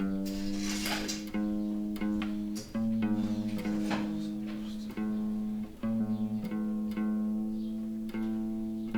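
Guitar playing slow, sustained notes, a new note plucked about once a second.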